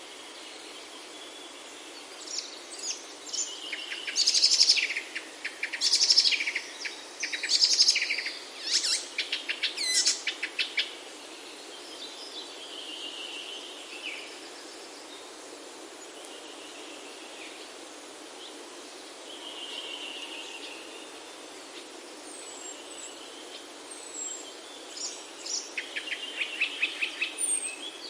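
Songbirds singing over a steady background hiss of outdoor ambience: a run of loud, rapid trilled phrases in the first half, softer scattered calls after, and another fast trill near the end.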